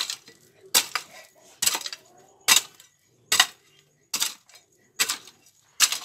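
Metal hoe blade chopping into stony, packed dirt to dig a hole: a sharp, clinking strike a little under once a second, about eight in all.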